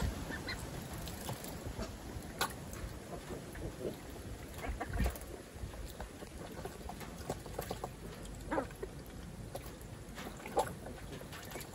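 Young ducks giving short quacks and calls every few seconds, with light splashing as a black duck bathes in a tub of water.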